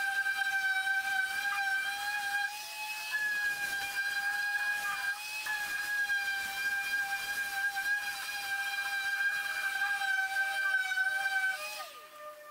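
Hand-held random orbital sander running on the painted plastic wing of a car, a steady high whine that sags slightly in pitch now and then as it is pressed into the work. About 11.7 seconds in it is switched off and winds down with a falling pitch.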